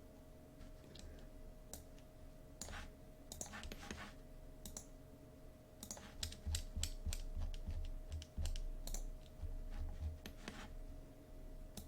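Irregular clicking and tapping on a computer keyboard and mouse, sparse at first and coming thick and fast from about halfway through, over a faint steady hum.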